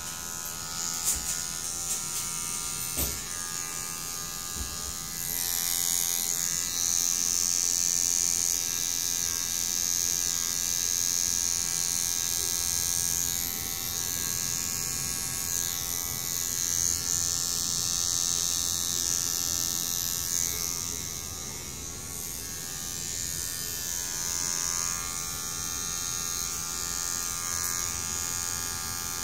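Electric hair clipper buzzing steadily as it cuts hair, with a few light clicks in the first few seconds.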